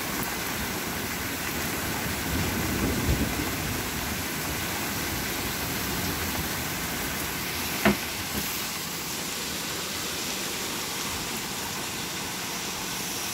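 Steady heavy rain outside, an even hiss, with a low rumble about three seconds in and a single sharp tap near eight seconds.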